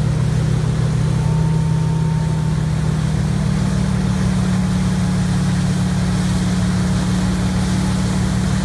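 Tow boat's engine running steadily under load at water-skiing speed, a loud, even drone, over the rush of churned water from the wake.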